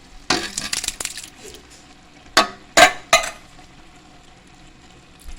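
Canned diced tomatoes being emptied into a metal cooking pot: a brief rattling, scraping rush in the first second, then three sharp metal knocks in quick succession.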